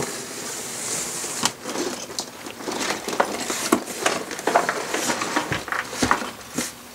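A large cardboard box being turned over and slid across a wooden tabletop: hissing scrapes of cardboard on wood, with handling knocks and taps on the box.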